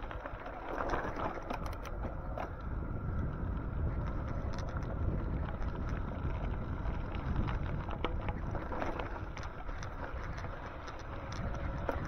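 Wind rushing over the microphone and rumble from riding an e-bike: a steady low rush with scattered small clicks and rattles.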